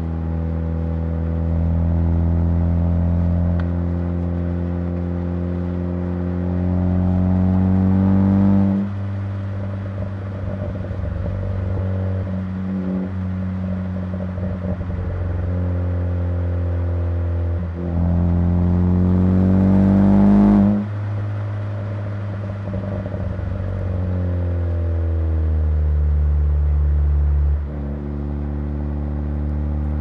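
Car engine pulling through the gears. Its pitch rises under acceleration twice, about four to eight seconds in and again about eighteen to twenty-one seconds in, and each rise ends in a sudden drop at the upshift. Between the pulls it runs steadily at cruising speed.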